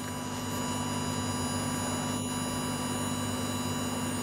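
Steady electrical hum from an Ahuja 250-watt PA amplifier on a load-test bench, driven at its full rated 250 W output. A low steady tone sits over a fainter buzz and gets slightly louder about half a second in, with a faint tap about two seconds in.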